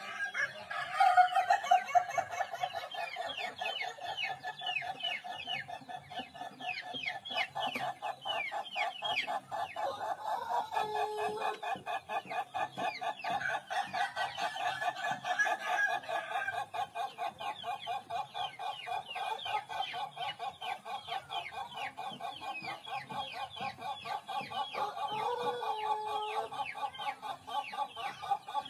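Ayam ketawa (laughing chicken) rooster crowing its long laughing crow: a rapid, stuttering run of notes that goes on almost without a break.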